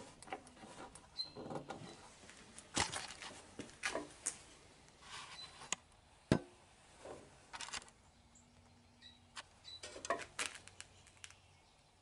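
Scattered light knocks, clicks and scrapes of things being handled, with one sharper knock about six seconds in.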